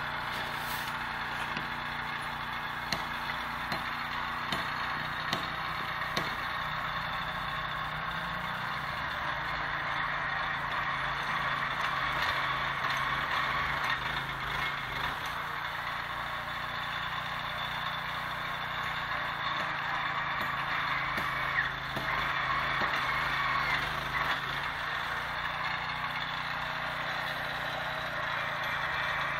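Small engine of a portable rail-screw driving machine running steadily while it is used to drive screws that fasten rails to concrete sleepers, with a few light metallic clicks.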